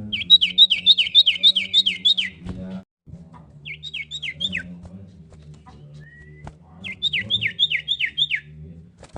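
Common iora (cipow) singing three runs of quick, repeated falling whistled notes, about four notes a second. The first run, of about eight notes, is the longest; a shorter one follows near the middle and a third near the end.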